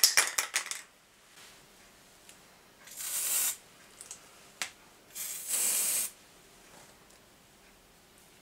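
Aerosol can of spray adhesive: a quick run of rattling clicks as the can is shaken, dying away within the first second, then two short hisses of spray about three and five seconds in, the second about a second long.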